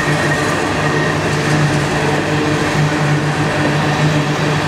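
Empty coal hopper cars of a BNSF coal train rolling steadily past close by: a loud, continuous rumble of steel wheels on rail, with a faint high whine above it.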